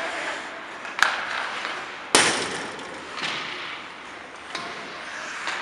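Two sharp cracks of hockey stick and puck on the ice, about a second apart, the second louder and ringing on through the rink's echo, over a steady hiss of play.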